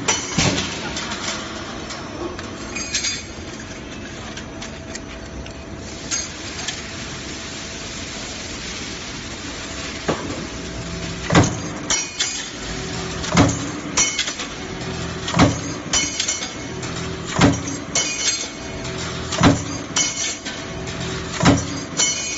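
Power punch press with a hinge-cutting die stamping steel strip: a sharp metallic clank with short ringing at each stroke, about one every two seconds from roughly ten seconds in, over a steady machine hum. Before that there is a single stroke at the start and a few light clinks.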